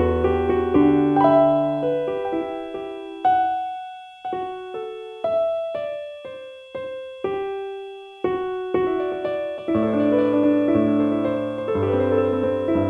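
Slow, gentle piano music. Full chords thin out about three seconds in to single notes that each ring out and fade, and fuller chords return near ten seconds in.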